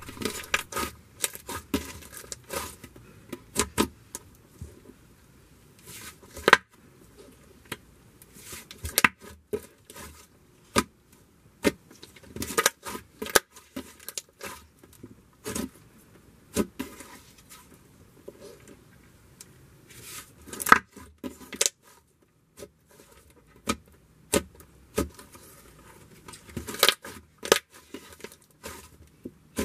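Lilac butter slime being squished, folded and stretched by hand, making irregular sticky clicks and pops, some in quick clusters.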